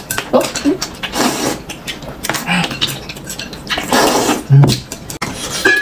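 Noodles and broth slurped noisily from a bowl: two long slurps, about a second in and about four seconds in, with light clicks of chopsticks and crockery between them.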